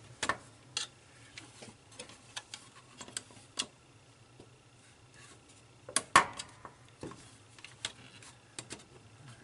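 Irregular small clicks and taps of a screwdriver tip against the plastic and metal of an opened CD-ROM drive as its front cover is worked loose, with a louder clatter about six seconds in.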